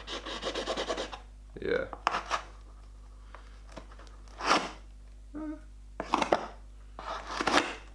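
Carved plastic dog-bone dagger stabbing and tearing into a cardboard box. A quick run of crackling pokes comes in the first second, then sharp stabs every second or two, some in quick clusters, as the point punctures the cardboard.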